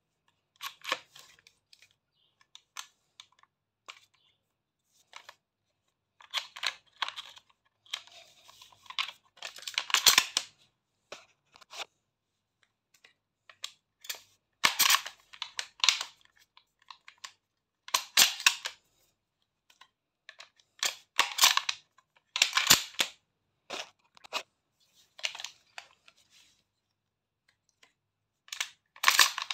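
Pump-action shotgun being handled at the receiver: short bursts of sharp metallic clicks and brief sliding sounds every few seconds.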